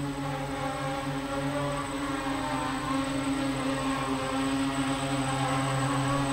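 Mini quadcopter's four small electric motors and propellers whirring steadily while it hovers low, growing slightly louder toward the end.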